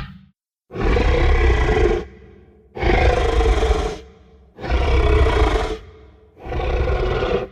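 Designed creature sound effect of a monster (the Gryphon) growling: four rough growls of about a second each, evenly spaced with short pauses.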